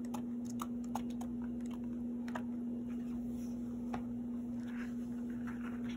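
Paper pages of a sticker book being turned and handled: scattered light clicks and soft rustling. A steady low hum runs underneath.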